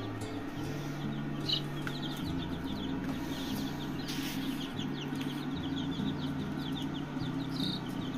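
A brood of newly hatched chicks peeping constantly, many short falling cheeps overlapping one another, over low background music notes that shift every second or so.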